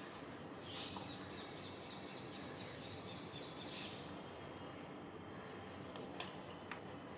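A bird calling a rapid series of short falling chirps, about four a second, for about three seconds, over steady outdoor background noise. A single sharp click about six seconds in.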